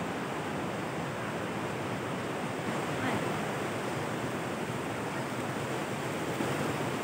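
Fast mountain stream running over boulders: a steady rush of white water.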